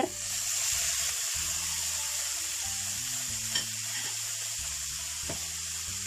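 Spinach stir-fry sizzling in a hot non-stick frying pan just after a little water is added: a steady hiss that comes up sharply at the start and slowly eases, with one light tap partway through.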